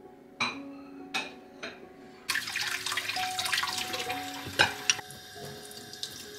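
Kitchen tap running into a stainless steel sink while ceramic dishes are rinsed. The water starts about two seconds in after a few light clinks, two sharp dish clinks come near the middle, and the water then runs more softly.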